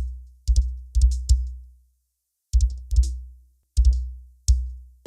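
Electronic drum-machine beat for a sound-system test: deep sub-bass kicks that ring out and fade over about half a second, each with a crisp high click on top. The hits come in short groups, with a silent break of about a second midway through.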